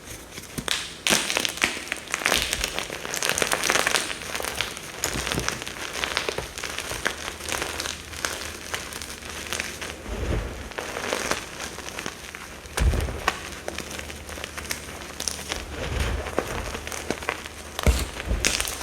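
Compressed mica powder bombs being crushed and crumbled by hand, giving a dense, crunchy crackle with a few soft low thuds along the way.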